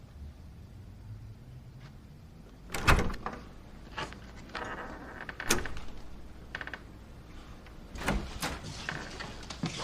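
A door being handled, with a loud thump about three seconds in, followed by scattered clicks and knocks and more knocks near the end.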